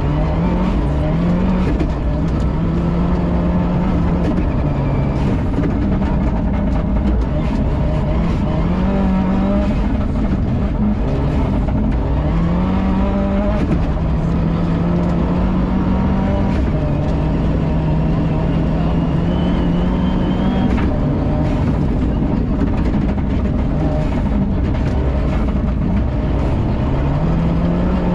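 Subaru Impreza N11 rally car's turbocharged flat-four, heard from inside the cabin, driven hard through the gears on a snow stage. The revs climb and drop again at each gearchange, with a long full-throttle hold in the middle and a lift-off just after it, over frequent short knocks.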